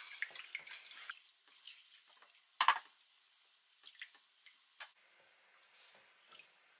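Wooden spatula stirring sugar syrup in a stainless steel saucepan: irregular small splashes and light clicks against the pan, with one louder knock about two and a half seconds in, fainter near the end.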